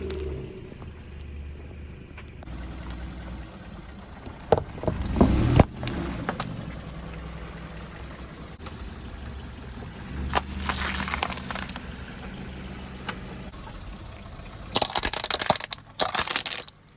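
A car's tyre rolling over objects and crushing them, over the low rumble of the car, with sharp cracks about five seconds in, crackling around ten to eleven seconds, and the loudest crunching near the end.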